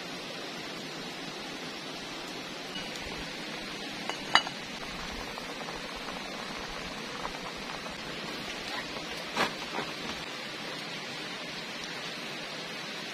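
Aluminium cooking pot clinking as it is handled: two sharp metallic clinks, about four and nine seconds in, the second with a lighter clink just after. Under them runs a steady background hiss.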